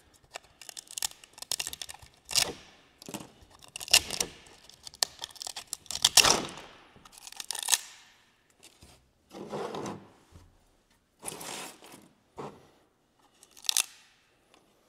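Support material being peeled and torn by hand off a 3D-printed PLA part: a string of short, uneven tearing and scraping pulls with gaps between.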